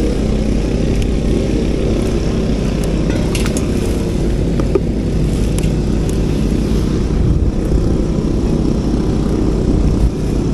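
Small engine running steadily, a constant motor drone with a few faint clicks over it.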